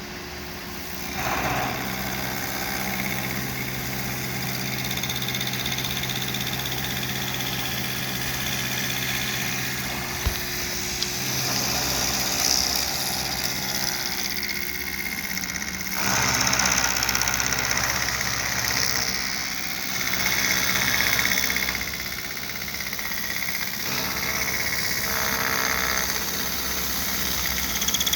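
Milling machine running with its cutter taking the final pass across a high-density plastic block, fed by hand: a steady motor hum under a cutting noise that swells and eases several times, loudest about halfway through.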